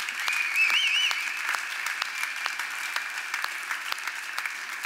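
Audience applauding, dense clapping throughout, with a short high warbling tone over it from about half a second in to a little past one second.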